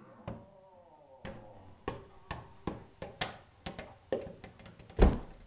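A run of about ten irregular sharp taps and knocks, the loudest about five seconds in.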